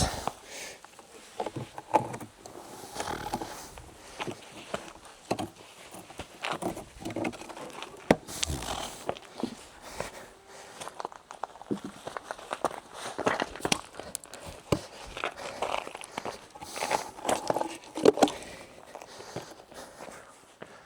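Scattered knocks, scrapes and rustling of a ladder being handled and secured.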